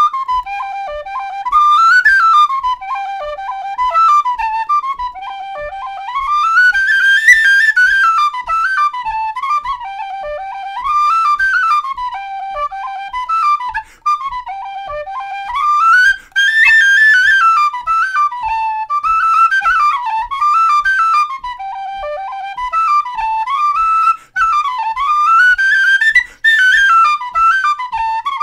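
Jerry Freeman Mellow Dog wide-bore tin whistle playing a fast Irish reel: a quick, ornamented melody with a slightly hoarse tone, broken by a few brief gaps for breath. A soft low thud marks each beat, about twice a second.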